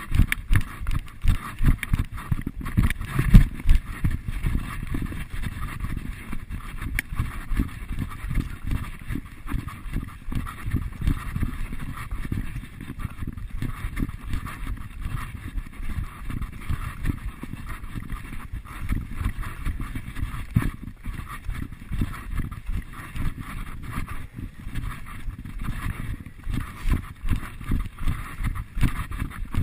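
Running footfalls on a dirt trail, a steady rhythm of low thuds with the camera jolting at each stride; one harder thump about three seconds in.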